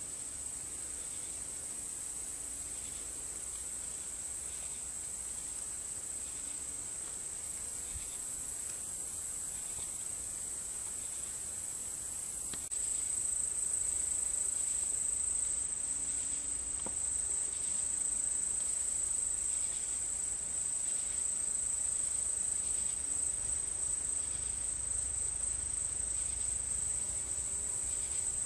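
Insects chorusing in a steady high-pitched drone that grows louder a little before halfway through.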